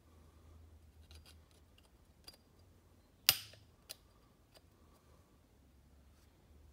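Light metallic clicks of small parts and hand tools while a piston, pin and circlip are fitted into place, with one sharp snapping click about three seconds in and a few softer ticks around it.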